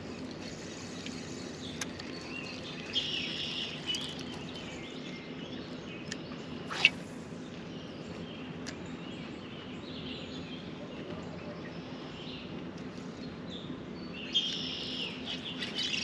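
Birds chirping and singing in short phrases over a steady low hum, with one sharp click near the middle.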